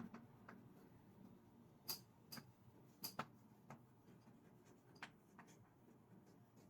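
Near silence with a few faint, scattered clicks and ticks, about seven over several seconds.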